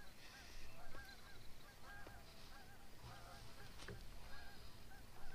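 Geese honking: a run of faint, short, repeated honks, with a few faint clicks among them.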